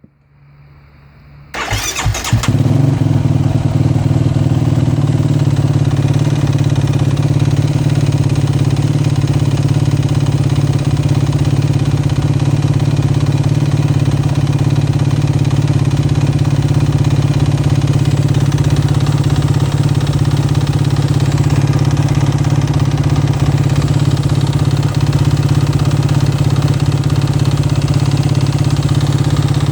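A 2009 Yamaha YFZ450R quad's warm single-cylinder four-stroke engine starts about two seconds in, then idles steadily. The owner suspects piston slap from its knocking sound when warm.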